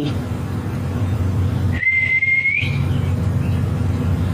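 A single short, steady whistle, rising slightly at the end, as a person calls a dog. It sits over a steady low rumble.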